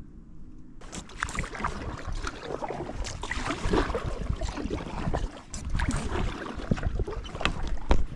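Kayak paddle strokes: the paddle blades dip and splash in the water and drip between strokes, in irregular crackling splashes over a low rumble.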